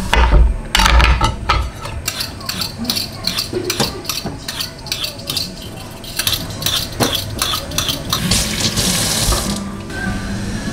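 Chef's knife cutting a cucumber on a cutting board, a run of quick knocks, then a kitchen tap running for about a second into a stainless sink near the end.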